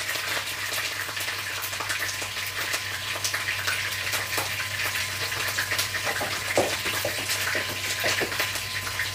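Food frying in hot oil in a wok: a steady sizzle with many small crackles and pops scattered through it.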